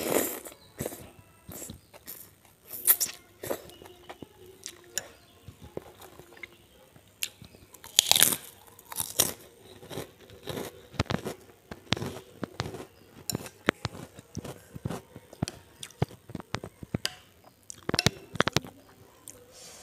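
A person eating soup close to a clip-on microphone: a noodle slurp at the start, then chewing with crunchy bites and wet mouth clicks, and a spoon working in the bowl near the end.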